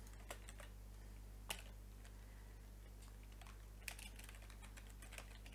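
Faint computer keyboard typing: scattered, irregular key clicks, a few in quick succession, over a steady low electrical hum.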